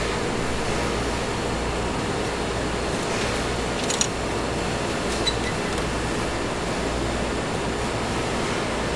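Steady factory room noise, an even hiss over a low hum, with two short sharp clicks about four and five seconds in.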